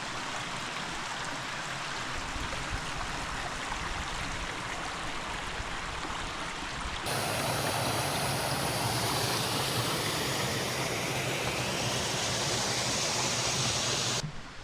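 Rushing water of a small forest stream, a steady even rush; about halfway through it cuts to a louder, closer rush of the same kind, which cuts off abruptly near the end.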